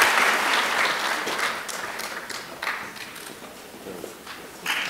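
Audience applause: many hands clapping, dying away gradually, then picking up again near the end.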